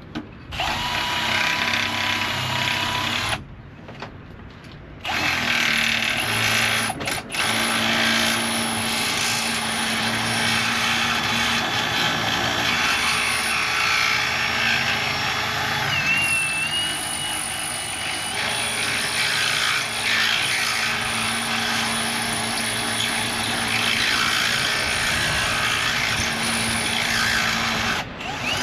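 Electric drill running under load in long runs, its motor hum steady with a grinding noise over it. It stops for about a second and a half some three seconds in, starts again, and cuts off just before the end.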